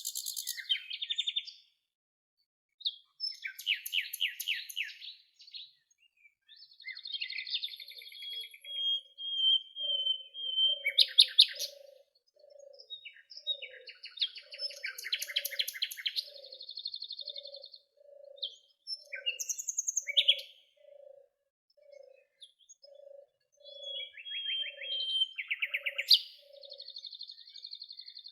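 Several songbirds singing in turn: high chirped phrases, rapid trills and buzzy notes, with one long steady whistle. A soft low note repeats about once a second in the background through the middle and latter part.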